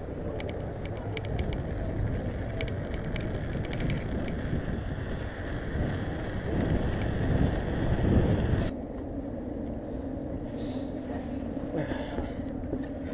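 Bicycle riding noise: tyres rattling over cobblestones with many sharp clicks, then a deeper rumble that swells as the bike speeds along. About nine seconds in it cuts off sharply to a quieter steady hum with faint voices.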